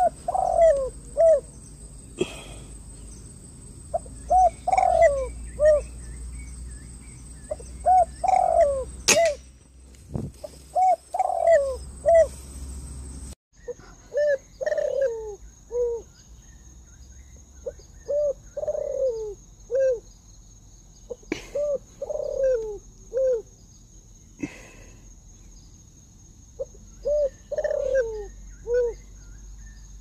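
Spotted doves (tekukur) cooing. Each short phrase has a few notes with a longer, falling note in the middle, and the phrase repeats every few seconds, with a steady high-pitched whine behind.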